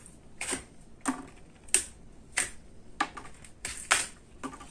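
A small microSD card package being opened by hand: a series of sharp plastic clicks and crackles, roughly two a second.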